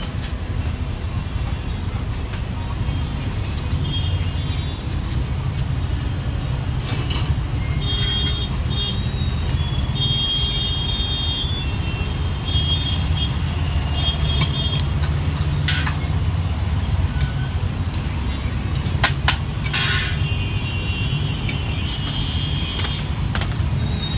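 Steady low rumble of street traffic, with a few short high-pitched tones and several sharp clicks over it.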